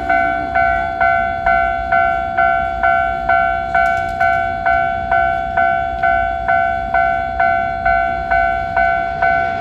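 Japanese level crossing's electronic warning bell in its standard low-tone setting, ringing steadily at a little over two strokes a second, each stroke fading before the next: the crossing is closed for an approaching train.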